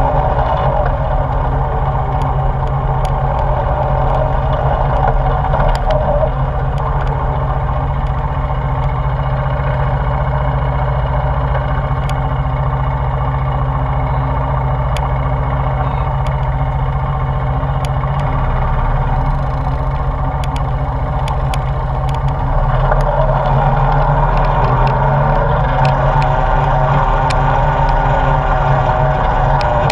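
ATV engine running steadily as the quad travels over a gravel dirt trail, with scattered sharp ticks. About three-quarters of the way through it gets somewhat louder.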